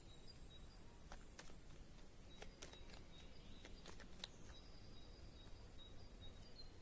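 Near silence, with faint, scattered clicks of playing cards being handled and laid down, over a faint, high, steady tone.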